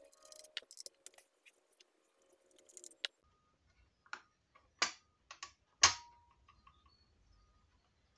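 Small plastic clicks and light rustling as connectors and ribbon-cable latches are worked loose on a BMW i3 inverter control board. About four seconds in come four sharper clicks, the last the loudest with a short ring after it.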